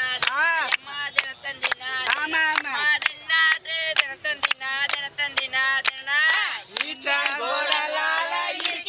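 Voices singing a song in wide, swooping pitch over a sharp, regular beat of about two to three strikes a second.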